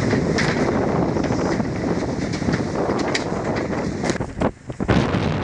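Strong wind buffeting the microphone aboard a racing sailboat at sea, a steady rushing noise with a few short sharp knocks or splashes and a brief lull about four and a half seconds in.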